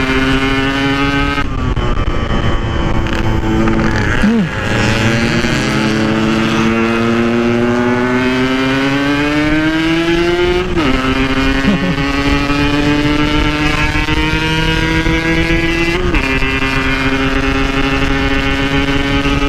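Yamaha RX-King's 135 cc two-stroke single-cylinder engine under way. Its pitch climbs steadily under throttle and steps abruptly at gear changes, about a second and a half in, around four and a half seconds, and near eleven and sixteen seconds.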